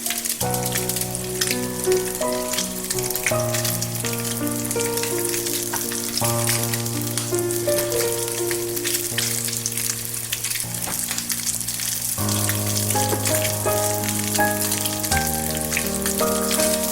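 Food sizzling and crackling as it fries in a pan, over background music with a melody and a bass line that shifts every few seconds.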